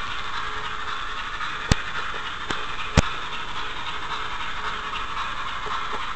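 Large-scale model train rolling along its track, heard from a small camera riding on it: a steady hiss with a few sharp clicks, the loudest about three seconds in.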